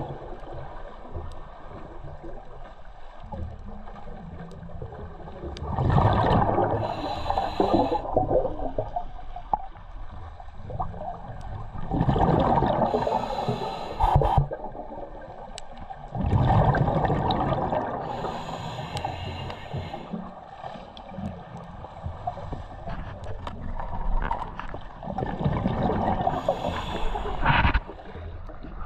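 Scuba diver breathing through a regulator underwater: four long, bubbling exhalations several seconds apart, with a quieter hiss between them.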